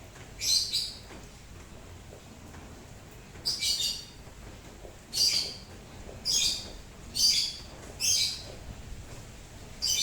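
A songbird repeats a short high chirp about seven times, most of them a second or so apart after a longer pause near the start, over a faint, steady patter of rain.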